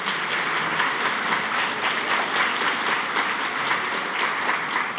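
Audience applauding: many people clapping together in a dense, even patter.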